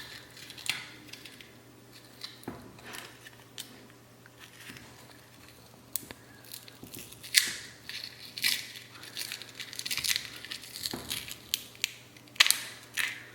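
Scratching, crinkling and tearing noises from a small fried tweeter being picked apart by hand, with scattered sharp clicks. The handling gets busier in the second half, and the loudest snaps come about seven and twelve seconds in.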